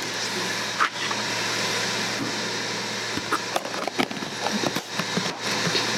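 Lid of a clear plastic food container pressed and snapped on by hand: a run of plastic clicks and knocks that starts about halfway through and grows busier, as the salad inside is closed up for shaking. A steady whir runs underneath, the Ninja Foodi Grill's fan running.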